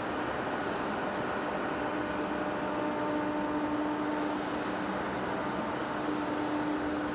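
Heavy-duty face lathe running steadily on a rotor shaft: constant machine noise with a steady humming tone and no change in speed.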